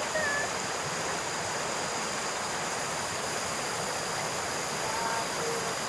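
Shallow rocky stream rushing over stones: a steady, even rush of flowing water.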